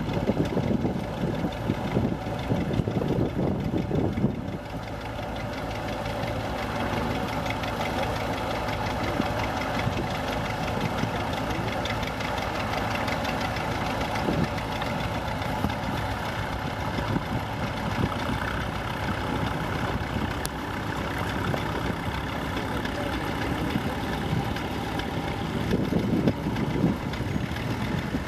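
Old vintage tractor engine running steadily at an even speed.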